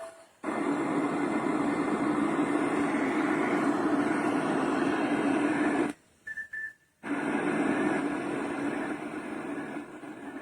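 A plush baby sleep-soother's speaker playing a steady rushing white-noise sound. It stops about six seconds in, a short beep sounds, and the noise starts again a second later.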